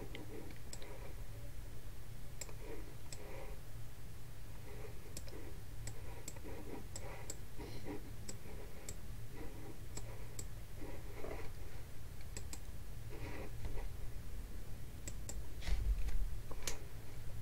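Computer mouse clicking irregularly, light sharp clicks every second or so, over a steady low hum. A louder cluster of clicks and a low thump come near the end.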